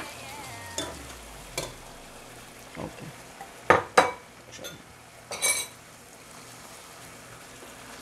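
Pan of tomato masala and soaked black-eyed peas sizzling, with several clinks and knocks of a metal spoon and dishes; the loudest two come close together about four seconds in, and one rings briefly about a second later.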